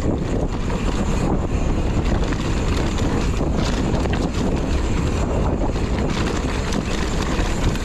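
Wind buffeting the microphone of a mountain biker's camera while riding a dirt singletrack, mixed with tyre noise and small rattles and clicks from the bike over the rough ground.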